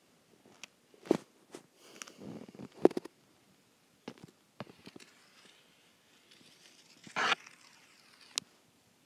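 Scattered light taps and clicks of a stylus on a tablet screen, with a brief rush of noise about seven seconds in.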